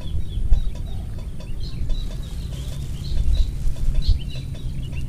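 Birds chirping in short, high, repeated notes, over a low steady rumble.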